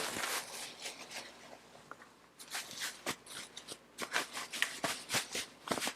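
A package being opened by hand: irregular rustling, crinkling and light taps of packaging, busier from about halfway through.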